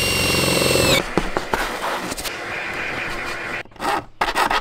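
Cordless drill running on the van's sheet-metal roof, its whine dropping in pitch as it winds down about a second in. Scraping and rubbing on the metal follow, with a few rough strokes near the end.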